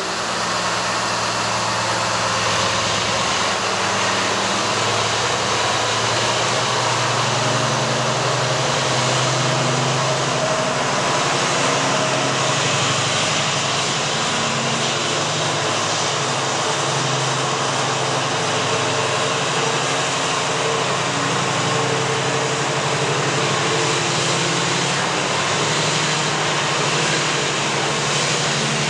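Freightliner Class 70 diesel locomotive, with its GE PowerHaul V16 engine, running under power as it hauls a container train past. The engine drone shifts pitch in steps over a steady rush of wheels and wagons.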